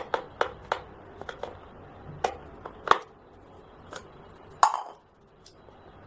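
Irregular sharp clicks and knocks, about a dozen, from hands handling a Lenovo G50 laptop's plastic case on a table. The loudest come near three seconds and just before five seconds in.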